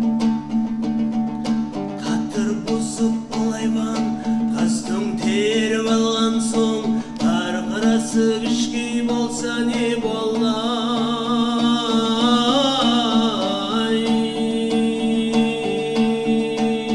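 A man singing a folk melody with vibrato, accompanied by an ensemble of strummed long-necked plucked lutes over a steady low drone.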